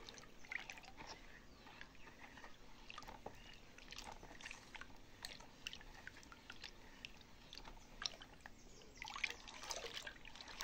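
Faint swirling and sloshing of diluted dish-detergent solution stirred round with a spoon in a large plastic bowl, with scattered small splashes and taps of the spoon, busier for a moment near the end.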